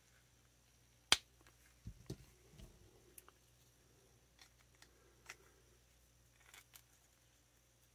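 Faint handling of a plastic Super7 Ultimates action figure as its head is swapped on the neck peg: a sharp plastic click about a second in, then soft knocks and rubbing, and a few small clicks later on.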